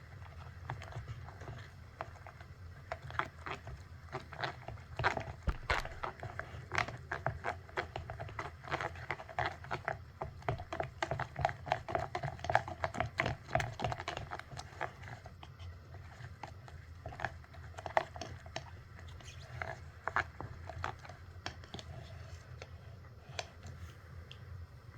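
Slime being squeezed and worked by hand, giving rapid small pops and crackles that are densest in the first half and thin out later. A steady low hum runs underneath.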